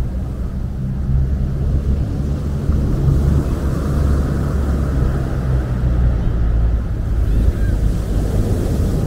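Sea waves breaking and washing up a pebble beach, with a steady low rumble underneath.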